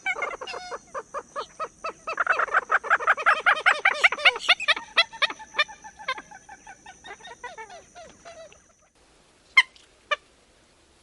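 Common gallinule giving its cackling call: a long run of rapid clucks that grows loud, then slows and fades out. Two short, sharp single notes follow near the end.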